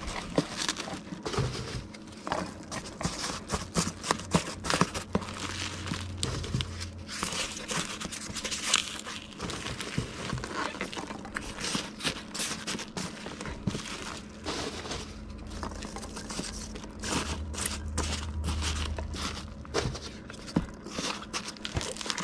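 Packing peanuts being put into a cardboard shipping box around an item to hold it in place: an irregular crinkling rustle with many small crackles and clicks.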